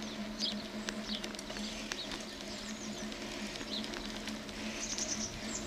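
Songbirds chirping in short, high, falling notes, scattered through and busiest near the end, over a steady low hum and the light scattered clicks and rattles of the bicycle rolling along.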